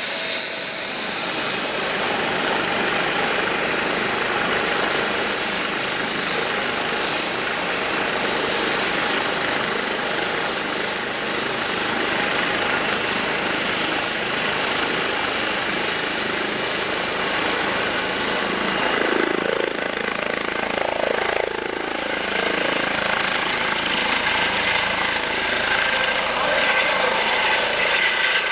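Eurocopter EC135 helicopter's twin turbine engines and rotor running, a steady high turbine whine over rotor noise. About two-thirds through, the whine steps up in pitch and the rotor noise gets heavier as power comes up and the helicopter lifts off.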